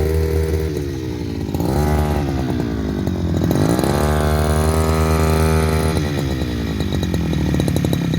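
Two-stroke engine of a Tasco 33PRO backpack brush cutter running, revved up and let back down toward idle three times. The third rev is held for about two seconds.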